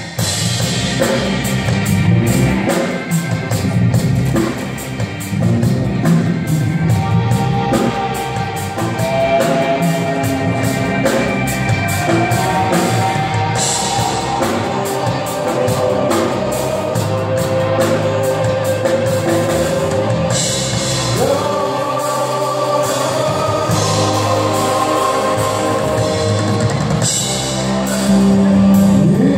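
Live band music: drum kit, electric guitar and keyboards with singing, heard in a large hall, getting louder near the end.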